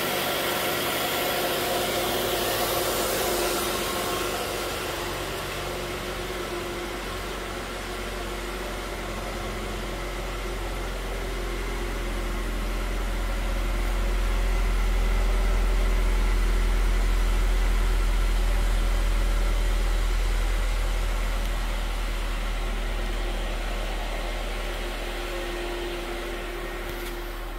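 2008 Mazda 3's 2.3-litre four-cylinder engine idling steadily. A deep low rumble swells up midway through, when the car's rear and exhaust end are closest, then eases off again.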